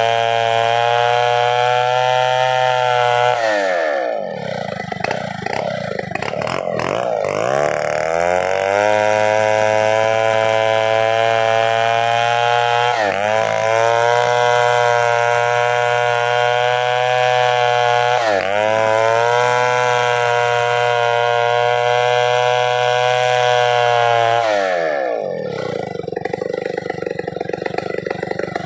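Two-stroke chainsaw running at full throttle. Its revs dip and pick up again several times, then drop to idle near the end.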